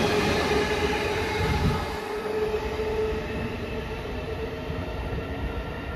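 JR East 209 series 500 electric train pulling out of the station and running past, its wheels and motors giving a steady whine over a rumble. About two seconds in the sound cuts to a quieter, steady rumble of a train running in the distance.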